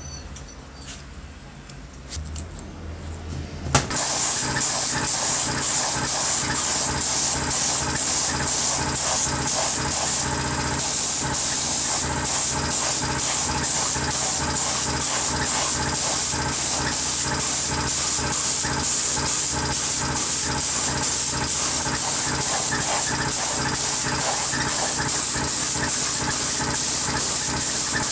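Paint spray gun spraying grey primer onto a power drill's aluminium housing: a loud steady hiss over a low steady hum, pulsing evenly about three times a second, starting suddenly about four seconds in. Before it, faint small clicks of a knife trimming masking tape.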